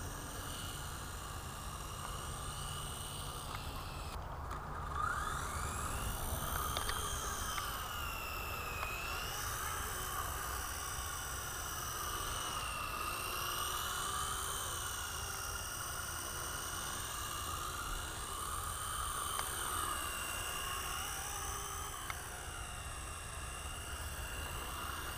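Blade 120 S micro RC helicopter's electric rotor motor whining in flight. It drops out briefly about four seconds in, then rises in pitch again and wavers up and down as the helicopter is flown.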